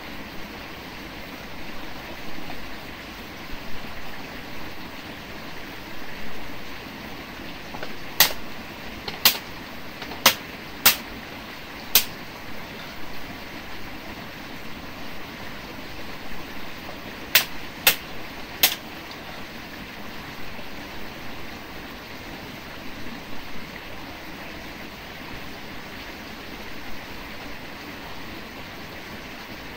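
Steady rushing of stream water, broken by sharp clicks: five in about four seconds near the middle, then three more in quick succession a few seconds later.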